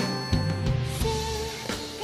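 Live band music with steady bass notes under a held melody line, and a hissing swell through the middle.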